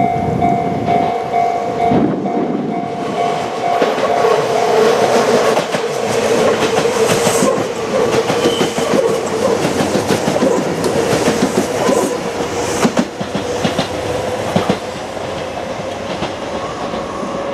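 Kintetsu Minami Osaka Line electric train passing over the level crossing, its wheels clattering over the rail joints in dense, rapid clicks, with the crossing's warning bell ringing. The clatter eases somewhat near the end.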